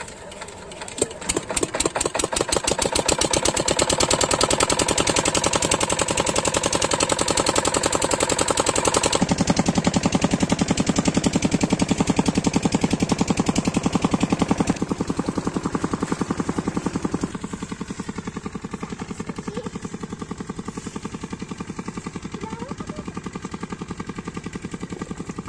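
Single-cylinder diesel engine of an 8 hp irrigation water pumpset starting up about a second in. Its firing quickens over the next couple of seconds and settles into a steady, rapid beat. It carries on throughout, becoming quieter in two steps in the second half.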